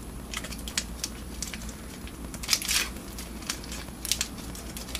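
Crinkling of a small Kex Choklad chocolate wafer bar's wrapper as it is opened by hand: scattered crackles, with louder crinkles about halfway through and again near the end.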